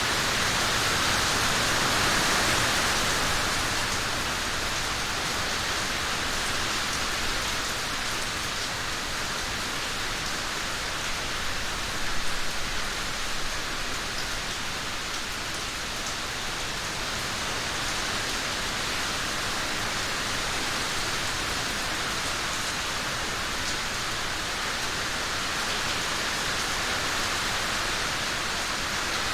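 Steady rain falling, an even hiss of drops without a break. There is a brief louder patch of spatter about twelve seconds in.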